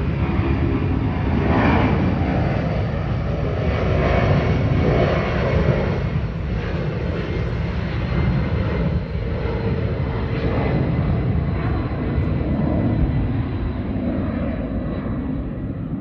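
Boeing 757-200 jet engines at takeoff power, a loud continuous rumble as the aircraft departs, easing off slightly near the end.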